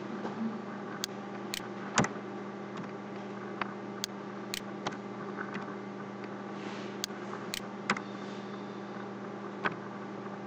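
Irregular single clicks of computer keys and a mouse, about a dozen spread over the stretch, while code is pasted and edited. A steady low electrical hum runs underneath.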